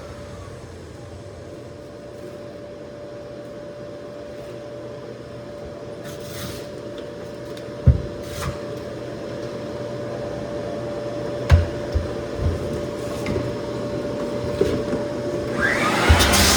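Lagler Flip floor sander's motor running steadily on white oak flooring, with one constant tone, a few knocks now and then, and the sound growing louder near the end.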